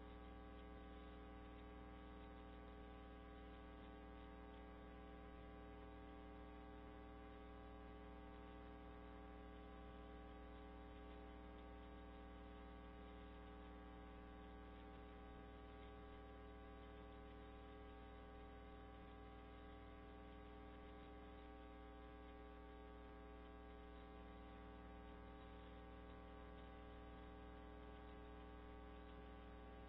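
Near silence apart from a faint, steady electrical mains hum with many evenly spaced overtones.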